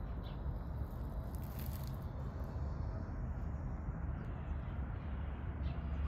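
Steady low background rumble with a few faint, brief clicks.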